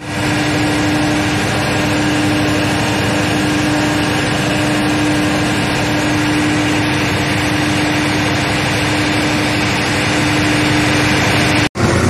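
An engine running steadily, a constant hum over even mechanical noise. It cuts out for a moment near the end, then resumes.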